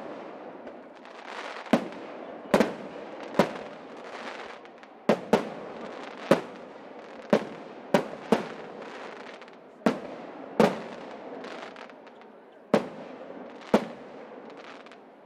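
Fireworks display: aerial shells bursting overhead, about a dozen sharp bangs coming every second or so, some in quick pairs, each trailing off in echo, over a continuous crackling, rumbling wash.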